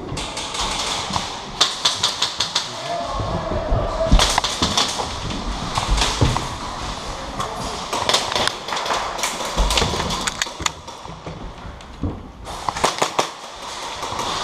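Airsoft guns firing in rapid bursts of sharp clicks, several times over, with low thumps in between.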